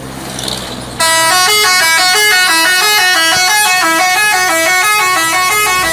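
A bus's multi-tone telolet horn plays a rapid melody of loud notes stepping up and down, starting about a second in. It comes over the bus's engine running.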